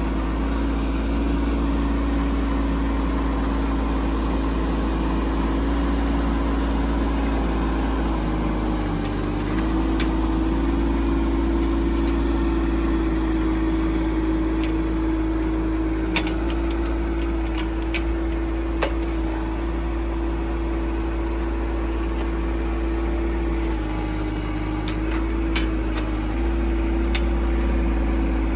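Bobcat E10z mini excavator's diesel engine running steadily, its note dipping briefly twice as the machine takes load, once about a third of the way in and again near the end. Scattered sharp clicks and metal clanks from the machine in the second half.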